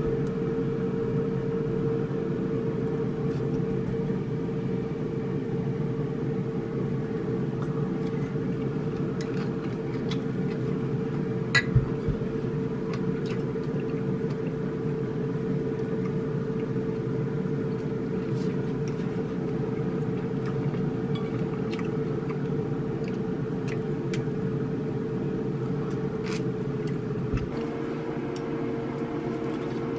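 Steady mechanical hum with one constant mid-pitched tone, its lower part changing slightly near the end. A couple of light clicks of chopsticks against tableware sound over it.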